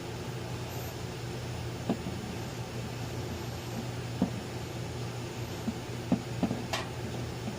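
Steady low motor hum from running equipment, with a few short knocks and clicks about two, four, and six to seven seconds in.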